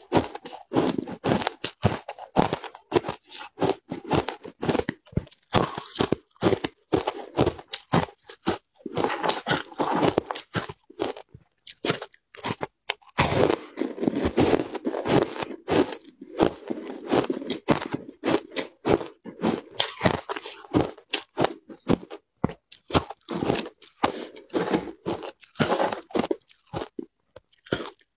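A person chewing and crunching chunks of frozen shaved ice dusted with matcha powder: a rapid, irregular run of crisp crunches with a few short pauses.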